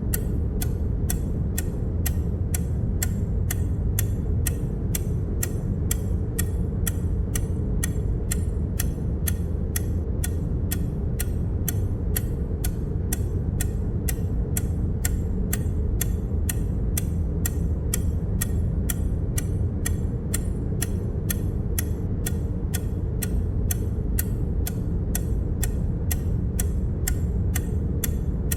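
A sound-effect tick repeating evenly, about twice a second, one tick for each count as the number goes up. Under it runs a steady low rumble.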